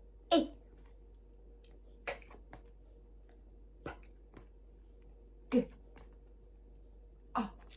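A woman's voice saying single phonics letter sounds one at a time, each short and clipped, five of them spaced about two seconds apart.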